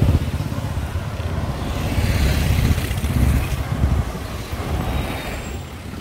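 Road traffic passing close by, a car overtaking at the start, heard over an uneven low rumble.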